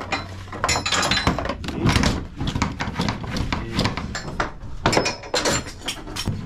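Ratchet tie-down straps being handled and unhooked from a car on a diamond-plate trailer floor: a string of irregular metal knocks and clanks from the hooks and ratchets, echoing in the enclosed trailer.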